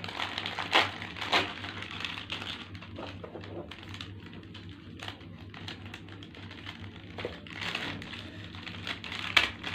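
A plastic snack pouch being torn open and its contents handled: irregular crinkling and sharp clicks, with a few louder snaps.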